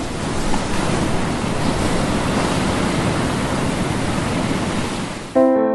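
Steady rushing noise of sea surf and breaking water, which stops abruptly about five seconds in as piano music starts.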